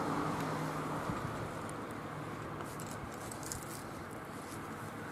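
Outdoor background of road traffic: a steady low hum, fading slightly in the first second, with a few faint light ticks.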